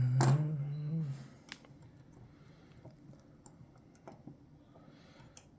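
A short hummed voice sound in the first second, then scattered light clicks, a few seconds apart, of picking tools working the levers of a Chubb GPO No.6 lever lock.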